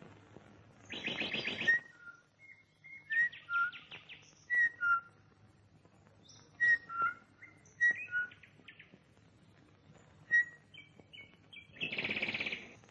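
Birds calling: a series of short, clear whistled notes, with a louder buzzy chatter about a second in and again near the end.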